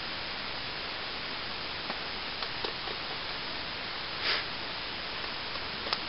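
Steady hiss with a few light clinks of a spoon stirring hot chocolate in a metal camping cup about two seconds in, and a brief rustle a little after four seconds.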